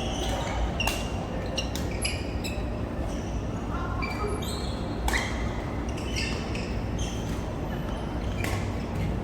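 Badminton rally in a large echoing hall: rackets striking a goose-feather shuttlecock in repeated sharp pops, mixed with short high squeaks of shoes on the court floor.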